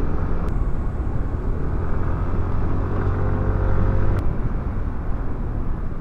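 Yamaha scooter running at a steady cruise, its engine hum mixed with wind and road rumble on the microphone. The low hum eases off about four seconds in.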